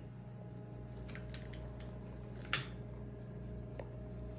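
Steady low room hum with scattered light clicks and taps from a server working at a dining table, one sharper click about two and a half seconds in.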